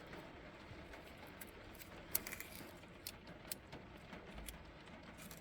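Faint crinkling and rustling of a plastic meat-stick wrapper being worked open by hand, with a few scattered small clicks.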